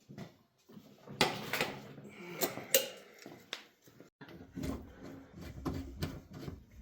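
Irregular knocks, clicks and clatter of parts and tools being handled during the water heater install, with the sharpest knocks about a second in and a little under three seconds in.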